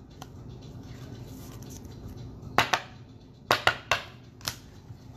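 Foil trading-card pack wrappers crackling as they are handled, with a cluster of sharp crinkles about halfway through.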